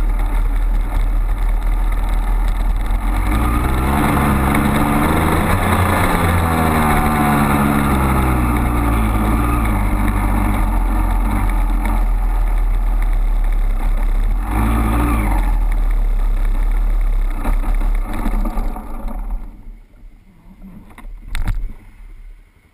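2002 Honda CR250R two-stroke single-cylinder dirt bike engine under way on a trail, its pitch falling and rising with the throttle and briefly louder about 15 seconds in. The engine sound drops away about 19 seconds in as the bike stops.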